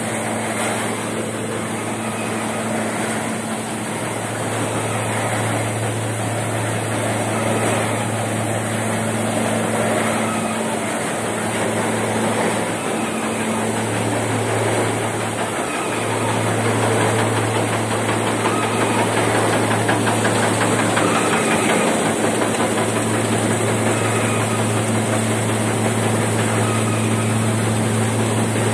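Petkus 541 seed cleaner running steadily: a low machine hum over an even rushing noise, the hum wavering now and then.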